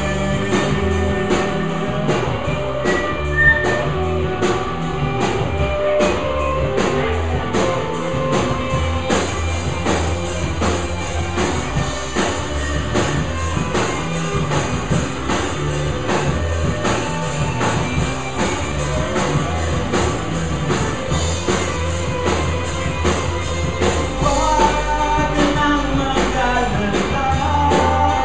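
Live rock band playing loudly on amplified gear: a steady driving beat on a drum kit, bass guitar, electric guitars and lead vocals. About four seconds before the end the bass gets heavier and a melody line comes forward.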